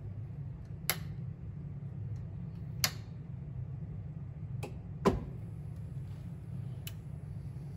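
Sharp clicks as the red power switch of a ShopBot Desktop CNC router is worked, the loudest about five seconds in as the machine is switched on. From that moment a faint, steady, high-pitched whine is heard as the machine powers up, and there is one more click near the end, all over a steady low hum.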